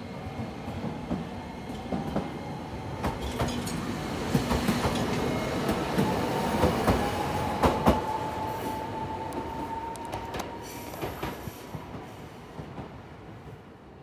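Tokyo Sakura Tram (Toden Arakawa Line) 8500-series streetcar passing close: its wheels click over the rail joints, and its motor whine rises in pitch and then holds. The sound is loudest about eight seconds in, then fades as the tram moves away.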